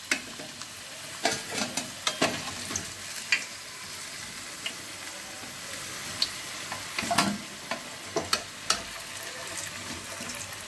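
Whole potatoes frying in hot oil in a steel pot, a steady sizzle. Scattered clinks and scrapes of a steel spoon against the pot come over it as the browned potatoes are lifted out.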